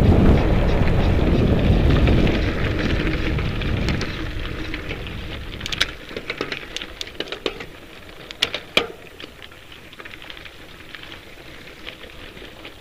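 Mountain bike tyres rolling over a gravel road with wind rumbling on the microphone, loud at first and fading over the first six seconds or so. After that, quieter crunching of loose gravel under the tyres with scattered sharp clicks and rattles.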